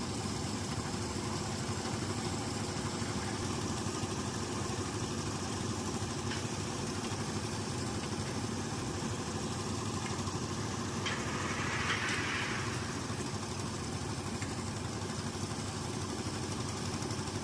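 Concrete mixer engine running steadily, with a short rush of noise about twelve seconds in.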